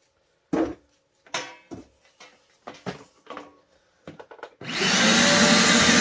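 A few separate knocks and clicks as the cord and body are handled. Then, about three-quarters of the way in, the Hart 6-gallon stainless steel wet/dry vac switches on. Its motor quickly comes up to a steady, loud rushing run.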